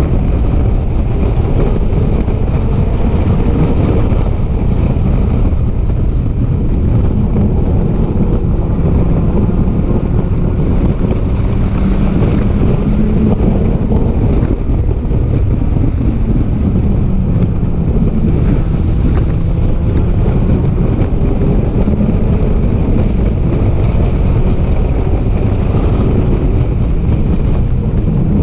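Race car engine heard from an onboard camera during a lap, its pitch falling and rising with the throttle, over heavy wind noise on the microphone.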